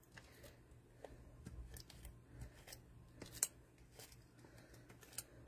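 Faint paper-crafting handling sounds: scattered small ticks and rustles as die-cut cardstock pieces are handled and foam adhesive dimensionals are pressed onto their backs, the loudest tick about three and a half seconds in.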